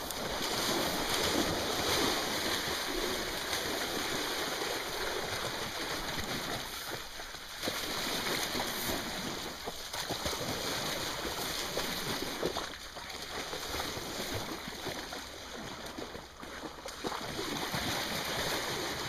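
Small river flowing, an even rushing of water with a few brief dips.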